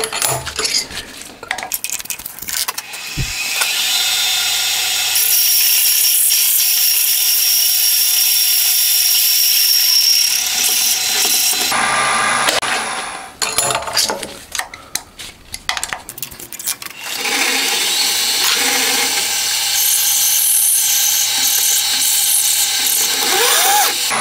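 Milling machine spindle cutting into the centre hole of a roller-chain sprocket with a high-pitched whine, in two long runs of several seconds, with clicks and knocks from handling the machine between them.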